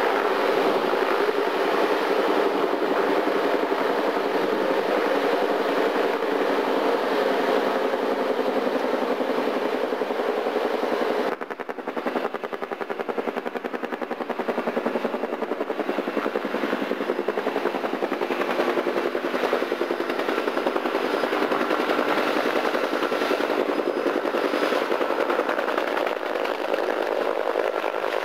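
Military helicopter rotor beating rapidly over a steady wash of wind and engine noise, with a brief dip in level about eleven seconds in.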